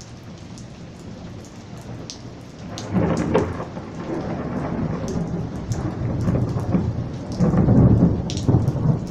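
Rain falling steadily, with thunder rumbling in about three seconds in and a louder roll of thunder near the end.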